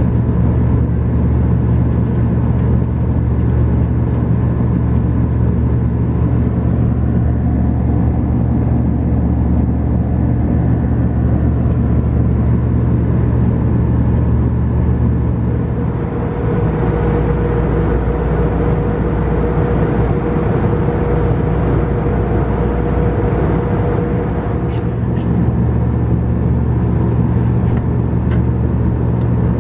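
Steady drone inside an Airbus A320's cabin, with a low hum made of several steady tones. About halfway through, a higher steady tone joins in and the low hum shifts for several seconds, then it settles back.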